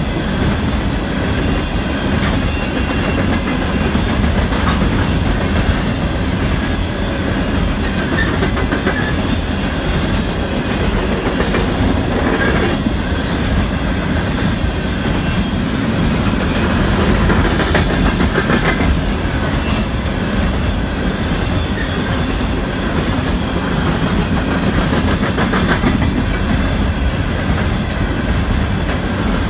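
A string of coal hopper cars rolling steadily past at close range, their steel wheels rumbling on the rails and clicking over the rail joints.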